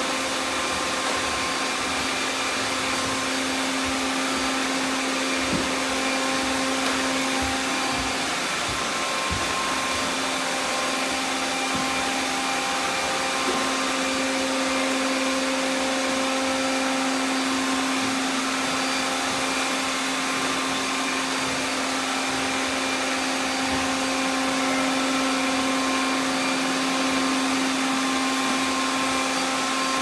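About thirty robot vacuum cleaners running at once, a steady whir with several overlapping motor hums at different pitches, and a few soft knocks in the first half.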